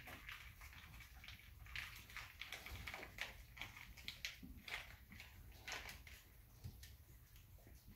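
A dog licking and nuzzling small puppies' faces: faint, irregular wet licking sounds.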